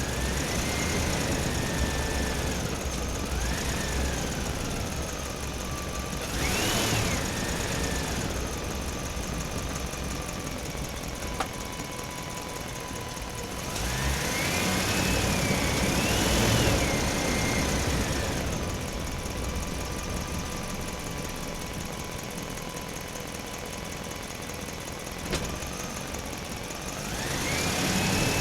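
Small electric motor whining steadily, its pitch rising and falling, with louder, noisier surges about a third of the way in, around the middle, and near the end.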